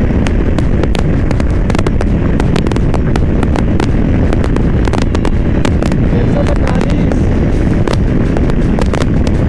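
Heavy wind rush on the microphone of a Bajaj Pulsar RS200 motorcycle at full speed, close to 150 km/h. The wind buffets the microphone steadily, with constant crackling pops, and covers the engine.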